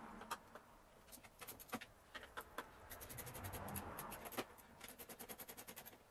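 Faint handling sounds as a rubber air intake tube is fitted back onto a Suzuki Jimny's air box: scattered clicks and knocks of plastic and metal parts, then a quick run of small ticks, about ten a second, near the end as a hand tool tightens the tube's fixing.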